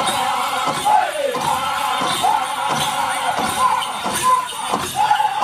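Powwow drum group singing in high voices over a big drum struck in a steady beat, the song for the men's chicken dance.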